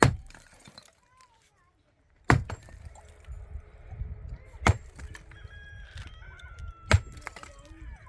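Four sharp, heavy blows evenly spaced a little over two seconds apart, struck into something hard that is being broken up, with a low rattling noise between them.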